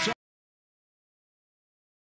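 Complete digital silence, after the last word of the play-by-play commentary and its background cut off abruptly a fraction of a second in.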